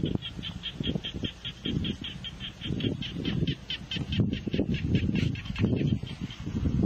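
A small animal chirping in a fast, even series of high notes, about seven a second, fading out near the end. Under it runs irregular low rumbling.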